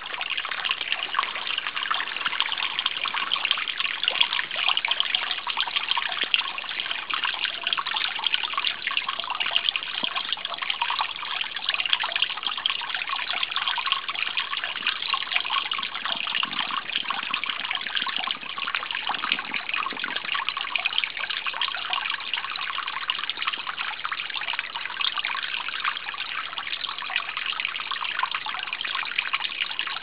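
Wet snow falling on leafy trees and snow-covered ground: a steady, fine crackling patter.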